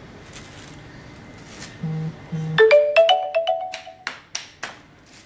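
A short electronic jingle like a phone ringtone: two low beeps, then a quick run of rising notes. Several sharp knocks follow near the end.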